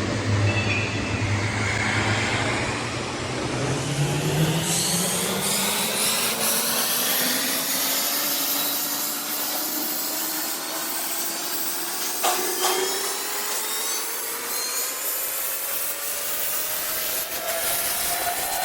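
A machine motor running with a whine that rises slowly and steadily, over a steady hiss, with a brief knock about twelve seconds in.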